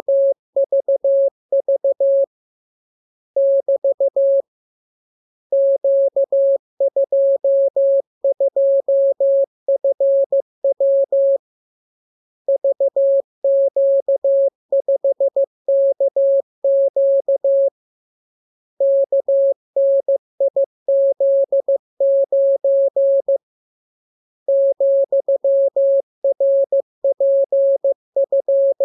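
Morse code sent as a single mid-pitched tone keyed on and off in dots and dashes, the characters run together in groups a few seconds long with pauses of about a second between groups.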